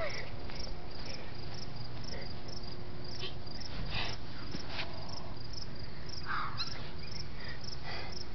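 Crickets chirping steadily in evenly spaced high pulses, about three a second, over a faint low background hum.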